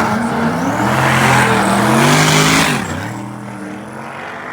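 Drag-race cars launching and accelerating hard down the strip, engine pitch climbing steadily, then dropping sharply about three seconds in and fading as they pull away.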